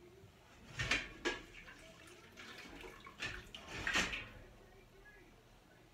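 A utensil clinking and scraping against a metal stockpot as wet cooked noodles are lifted out, with a little water sloshing. There are sharp knocks about a second in and again shortly after, then a busier cluster three to four seconds in.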